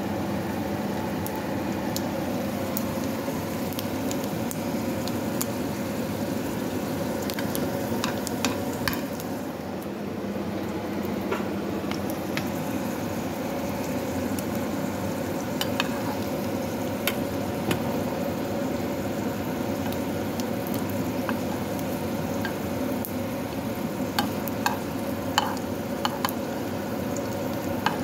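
Sausage slices frying in hot oil in a pan, a steady sizzle with scattered sharp pops and clicks. Near the end a metal spoon clinks against the pan as the slices are turned.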